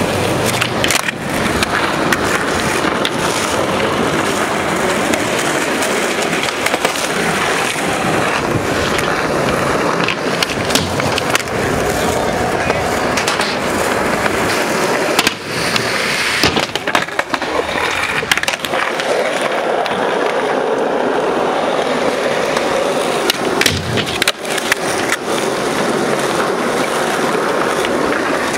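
Skateboard wheels rolling over rough asphalt, a steady grinding rumble, broken several times by sharp wooden clacks of the board being popped and landing.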